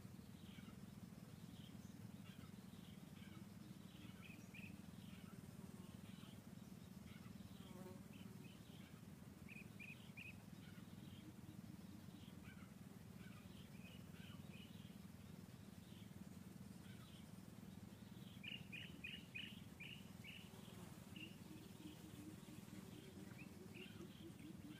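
Faint forest ambience: scattered short, high bird chirps over a low steady hum, with a quick run of chirps about three-quarters of the way through.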